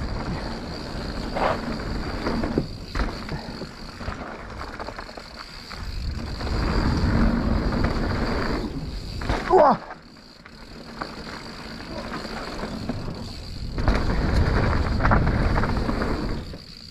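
Mountain bike descending a bikepark downhill trail on a point-of-view camera: wind rushes over the microphone while the tyres run on dirt and the bike rattles and knocks over bumps. The sound comes in swells and drops off briefly near ten seconds in. Just before that drop there is a short sound that wavers up and down in pitch.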